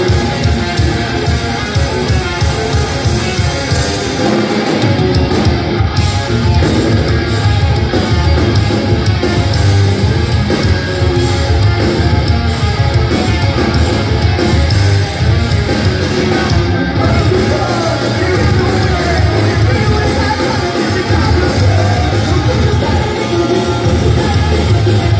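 Progressive metal band playing live through a venue PA: distorted guitars, bass and drums with sung and yelled vocals. The heavy low drum and bass pulse comes in about four seconds in.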